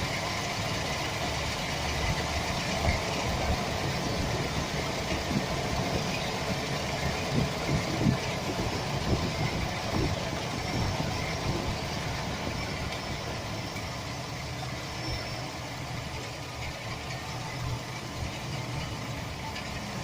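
Chevy Express's 4.3 L V6 engine running steadily at idle, with a few faint, irregular knocks. The owner puts this rattle down to a bad starter motor gear bumping against the flexplate.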